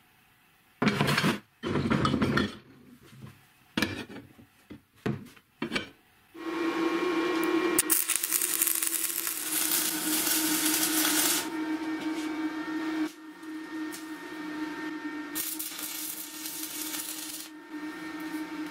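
Steel strip handled on a wooden workbench: two loud scrapes, then a few short metal knocks. From about six seconds in, arc welding on the steel shock absorber bodies: a continuous crackle and hiss over a steady hum, dropping a little in level about halfway through.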